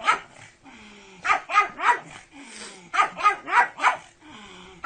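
Dog barking in short, sharp runs: one bark at the start, three about a second in, and four more around three seconds in.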